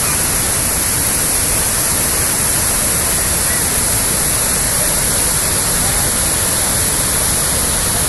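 Muradiye Waterfall's cascades pouring down the rock face into the pool: a steady, loud rush of falling water.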